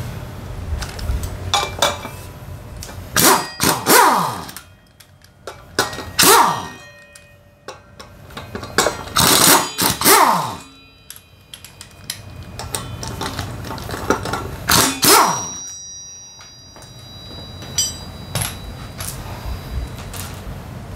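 Pneumatic impact wrench loosening the bolts of a worn scooter front brake disc (Honda PCX125) in several short hammering bursts, each ending in a falling whine as the motor spins down, with sharp metal clinks between.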